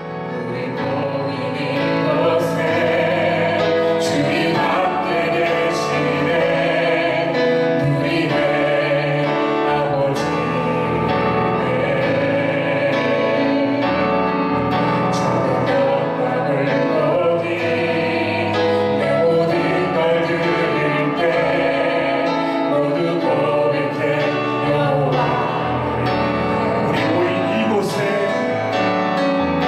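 Korean contemporary worship song sung by a woman and a man into microphones over instrumental accompaniment with a light beat. Near the end the man sings alone.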